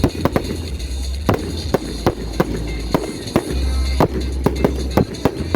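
Fireworks going off: a rapid, irregular string of sharp bangs and crackles, several a second, with music playing underneath.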